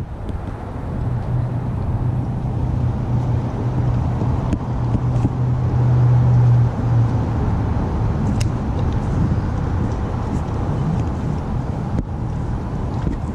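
Small boat motor running with a steady low hum that grows louder and then cuts off about halfway through, over a rumble of wind and water.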